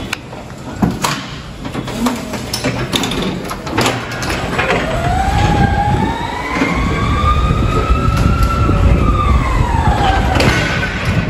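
Electric forklift's drive motor whining as it travels, the pitch rising over about four seconds and falling away again near the end, over a low rumble. A few knocks and clatters come in the first seconds.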